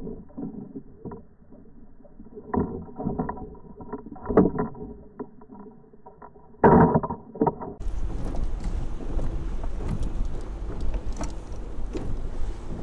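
Muffled underwater sound from a Water Wolf line-towed fishing camera being pulled through the water behind a muskie lure, with irregular dull knocks and thuds. About eight seconds in it switches to steady wind and water noise with a low rumble, heard from the boat above water.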